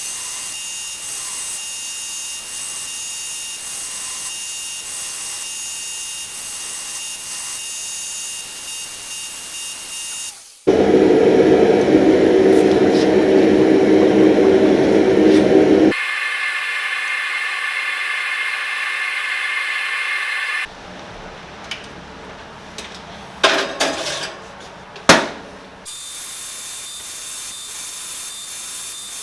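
Edited run of workshop tool sounds: a steady hiss with a thin high whine, cut to a loud low-pitched machine running for about five seconds, then a higher-pitched whining tool for about five seconds, a few sharp knocks, and the steady hiss again.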